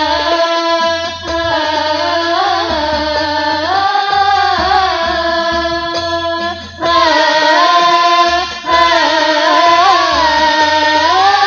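Live Islamic song: girls singing a winding melody through microphones over a regular beat of rebana frame drums. The sound dips briefly about six and a half seconds in and comes back fuller.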